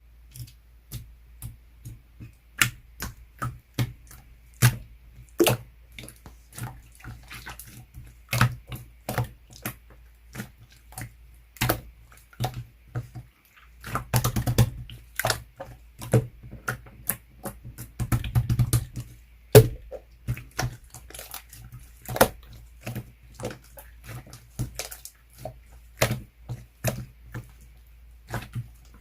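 Red slime being pressed and played with by hand, giving irregular sharp clicking and popping sounds, with denser squishing spells about halfway through and again a few seconds later.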